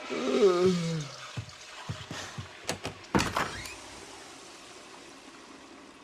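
A drawn-out groan falling in pitch, then a few knocks and clatters over a steady hiss that fades away.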